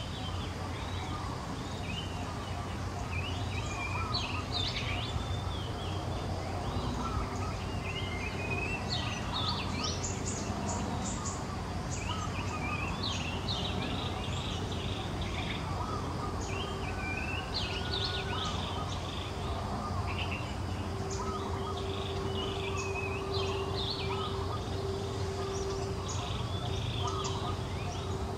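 Birds chirping and twittering again and again over a steady low background hum. A faint steady tone comes in about two-thirds of the way through.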